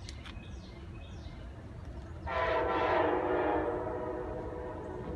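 Horn of a distant approaching MARC commuter train led by a Siemens SC-44 Charger locomotive: one long blast starting about two seconds in, loudest just after it begins, then slowly fading.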